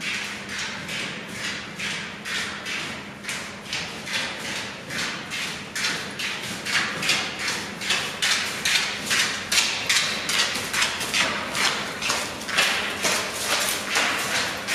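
Footsteps in an even walking rhythm of about two a second, getting louder about halfway through.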